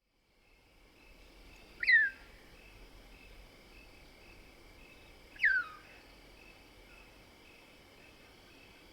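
Mohol's bushbaby (lesser bushbaby, Galago moholi) giving two short squeaks about three and a half seconds apart, each sliding quickly down in pitch. Insects keep up a steady pulsing trill underneath.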